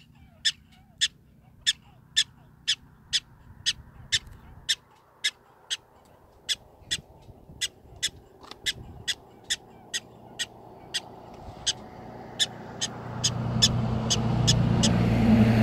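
Black-tailed prairie dog giving its barking alarm call: short, sharp, high chirps repeated evenly about twice a second. A low steady hum builds underneath in the last few seconds.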